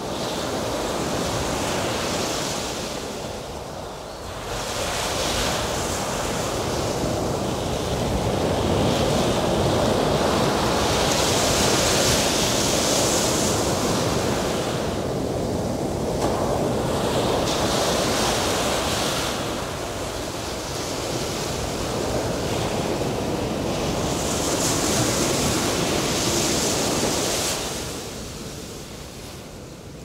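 Ocean waves surging and breaking, in repeated swells that rise to a hiss of spray and fall away every few seconds; the surf dies down near the end.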